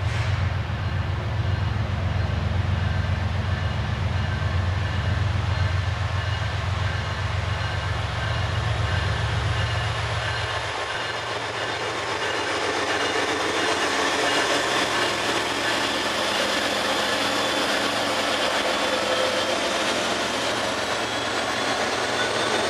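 Freight train with EMD SD70ACe and GE ES44DC diesel locomotives approaching and rolling onto a bridge overhead. A deep low rumble for the first half gives way to brighter, steadily growing engine and rail noise as the locomotives reach the bridge near the end.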